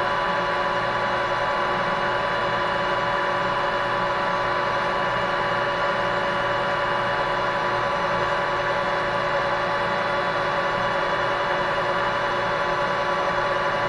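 Metal lathe running steadily while the tool, fed by hand, cuts a short taper in a steel shaft: a steady machine hum and whine of several tones. The cut goes with little chatter now that the tool is set up more rigidly.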